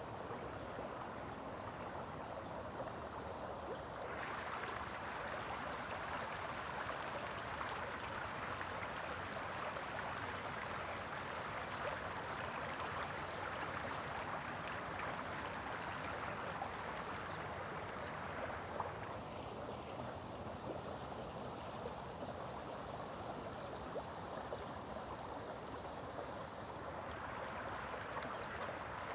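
Running water of a stream, a steady rushing that grows fuller about four seconds in and eases for a moment around two-thirds of the way through.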